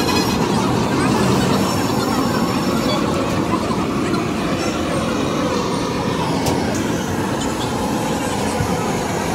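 Handheld gas blowtorch, fed by hose from a gas cylinder, burning steadily with a continuous rushing noise as it melts cheese, over busy street background noise.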